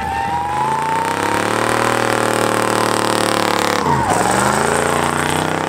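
Car engine revving hard during a tyre-smoking burnout. The revs climb and hold high, drop sharply about four seconds in, then climb again.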